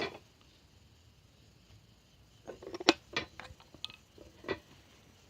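A cluster of short clinks and knocks, cookware being handled, starting about two and a half seconds in and dying away near the end.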